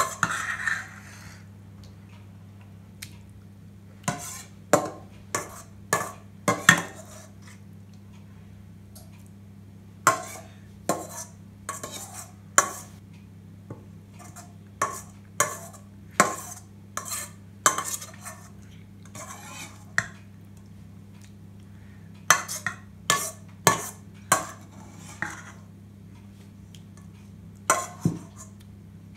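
Metal spoon stirring a liquid egg mixture in a stainless steel mixing bowl, clinking sharply against the sides in runs of several strikes with pauses between. A faint steady low hum sits underneath.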